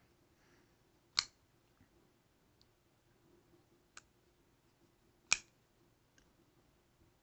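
Folding pocketknife being worked by hand: two sharp clicks from the blade and lock, about four seconds apart, with a fainter click between them.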